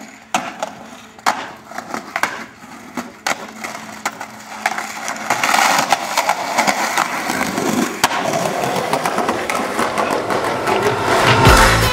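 Skateboard clacking sharply on concrete several times, then its wheels rolling steadily over pavement, growing louder.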